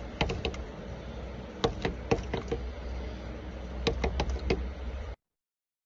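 A bird pecking at a window pane: quick bursts of sharp taps on the glass in three groups of a few knocks each, then the sound cuts off suddenly. Others take it for a bird fighting its own reflection.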